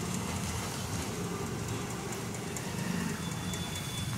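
A small motor running with a steady low drone, with no hammer blows.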